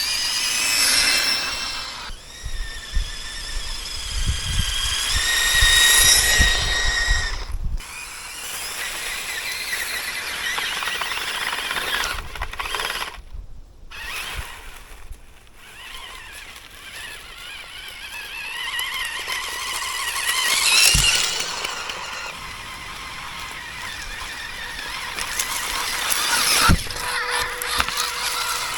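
Radio-controlled car's small electric motor and gears whining, the pitch rising and falling with the throttle, cutting out and starting again several times. There is a low rumble under the whine in the first several seconds.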